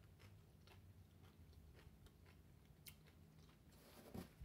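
Faint chewing of a mouthful of tortilla-chip nachos: a few soft, scattered crunches and mouth clicks, with a short hum near the end.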